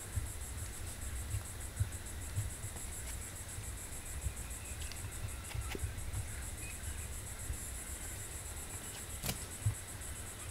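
Cicadas chirring steadily, a high-pitched pulsing drone, over a low rumble of wind on the microphone with a few soft thumps and faint clicks.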